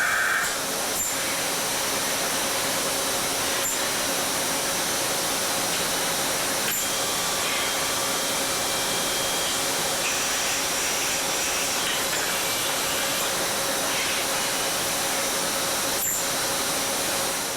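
Welding arc on an exhaust pipe: a steady hiss under a faint constant hum, broken by a few sharp clicks.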